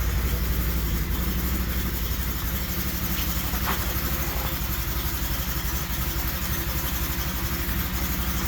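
Can-Am Maverick Trail side-by-side's V-twin engine idling steadily just after a cold start.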